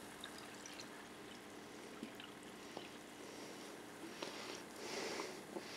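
Pepsi poured slowly from a can into a plastic cup of cola, the carbonation fizzing faintly with small crackling bubble pops; the fizz grows louder about three seconds in.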